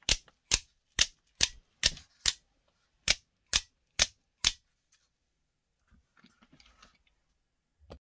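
Double-action out-the-front (OTF) automatic knife firing its blade out and back in again and again, a sharp snap each time: ten snaps about two a second, then a pause with faint handling noise. The action fires cleanly, working again on a newly replaced spring.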